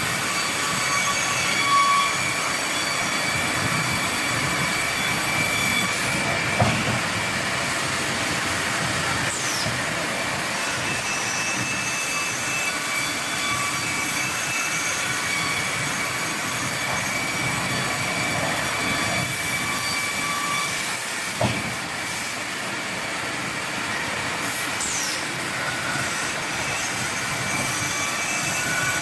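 Sawmill machinery running steadily with a continuous high whine and hiss, broken by a few brief knocks.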